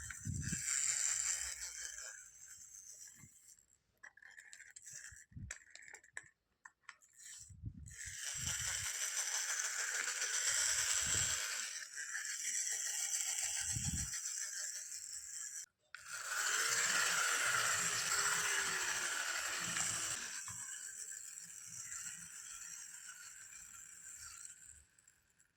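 Close-up handling of toy packaging: stretches of crinkling and rustling with rattles, scrapes and light knocks of small plastic pieces, broken by short pauses.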